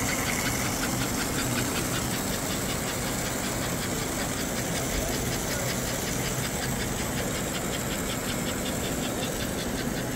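A small motor running steadily, with a fast, even ticking over a low hum.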